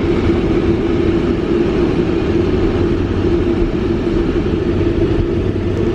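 Steady drone of a running vehicle, with a constant low hum over an even rumble.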